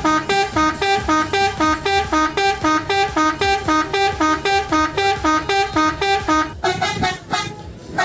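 Telolet musical horn of an odong-odong mini tourist train, playing a fast repeating two-note tune, about three notes-pairs a second. Near the end the pattern changes briefly before it stops.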